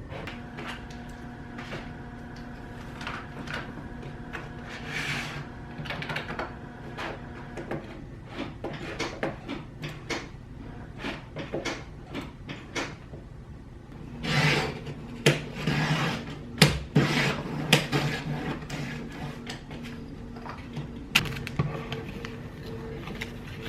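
Handling noises: a scattered series of clicks, knocks and rustles over a steady low hum, busiest and loudest for a few seconds past the middle.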